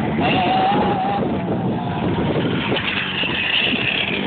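Mini motocross bike's engine running and revving, its pitch rising and falling with the throttle.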